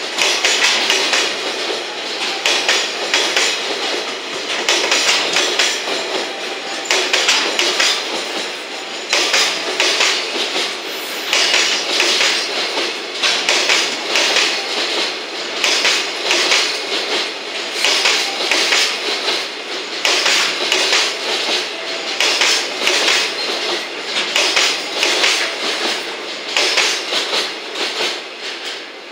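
Container freight wagons of a long freight train rolling past at speed, their wheels clattering over the rail joints in a steady, repeating rhythm of loud bursts.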